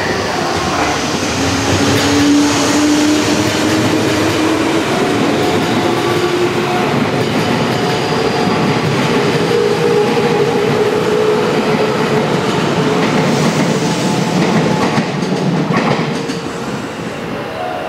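JR West 201 series electric train pulling out and accelerating past, its thyristor-chopper traction equipment whining with a slowly rising pitch over the rumble of the wheels. Clicks from the wheels over rail joints follow, and the sound dies away near the end as the train leaves.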